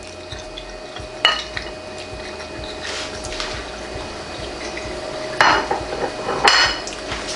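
Plate and dishes clinking as they are handled and set down on a kitchen counter: a sharp clink about a second in, then two more close together near the end, over a steady faint hum.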